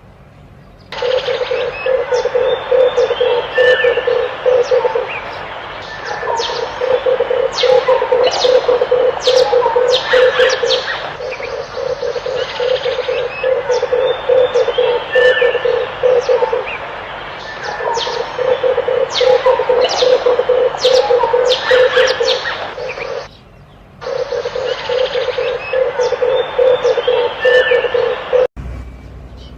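Red turtle doves cooing in five low, rapidly pulsing phrases of about four to five seconds each, separated by short pauses. Other birds chirp and whistle higher above them throughout.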